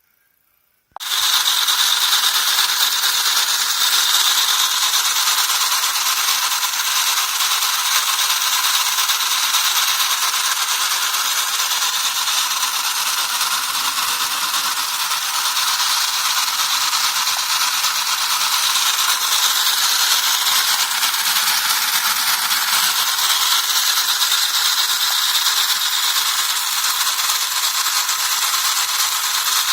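Payá O-scale tinplate electric locomotive running: a steady high whir of its small electric motor and gears that starts abruptly about a second in.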